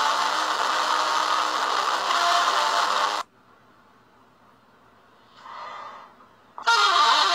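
A loud, harsh rushing noise cuts off suddenly about three seconds in. After a near-quiet stretch with a faint sound, a loud, brassy trombone blast bursts in near the end.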